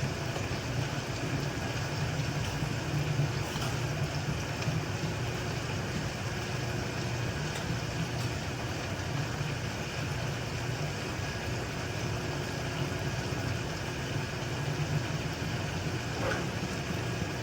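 Chicken frying in a pan, a steady sizzle over a low, even hum.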